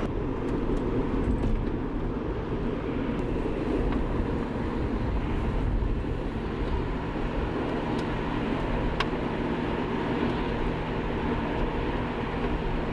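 Steady car engine and road noise heard from inside the cabin of a moving car, an even low rumble with no sudden events.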